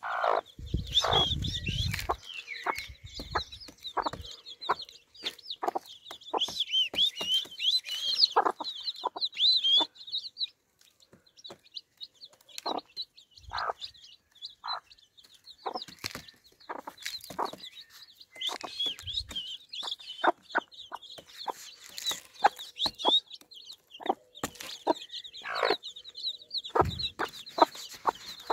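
Domestic chicks peeping in runs of rapid, high, wavering cheeps, while a mother hen gives short, low clucks among them.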